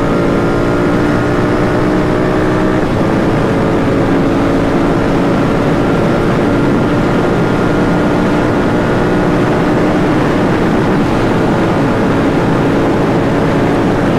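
Royal Enfield GT 650's 648 cc parallel-twin engine running steadily at highway cruising speed, with wind noise underneath. Its note shifts once, about three seconds in.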